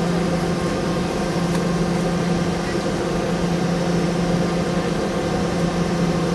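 Boeing 717-200's rear-mounted Rolls-Royce BR715 turbofan engines running at steady low power while the aircraft taxis, heard from inside the cabin beside the engine: an even hum with a few constant tones and no spool-up.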